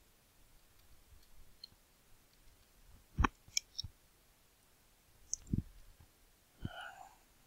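Computer keyboard and mouse clicks: faint key taps as a password is typed, then a few louder, separate clicks about three seconds in, and two more clicks with a dull knock in the second half.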